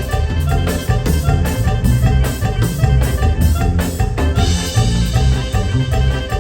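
Band playing an instrumental number over a sound system, with a steady drum beat and a bass line.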